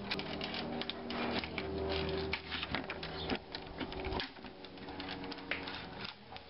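Light metal chain clinking and rattling as it is handled, with clicks and knocks from the door and its brass knob as the door is opened and held by the chain. The clinks come thick and fast at first and thin out after about four seconds.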